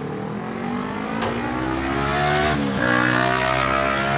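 A motor vehicle's engine accelerating, its pitch rising and getting louder, dipping sharply about three seconds in, then holding steady.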